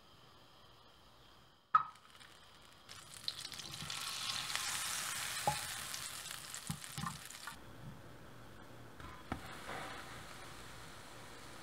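Butter sizzling and foaming as it melts in a hot frying pan, after a sharp click about two seconds in. The sizzle is loudest for about four seconds, then turns quieter, with a soft knock as a slice of white bread is pressed into the melted butter near the end.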